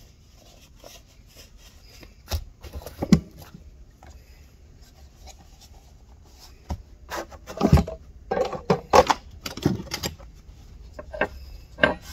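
Irregular knocks and clatter of things being handled on a wooden workbench, with one burst of them a couple of seconds in and a longer flurry past the middle. The knocks include the plastic chainsaw bar cover being moved.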